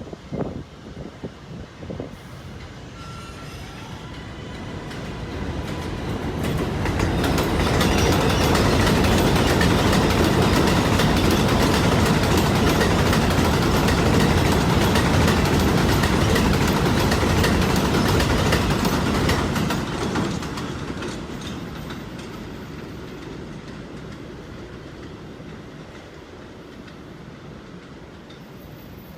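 A New York City Subway R188 train passing by. It builds from a couple of seconds in, is loudest from about seven to twenty seconds with a rapid run of wheel clicks over the rail joints, then fades away.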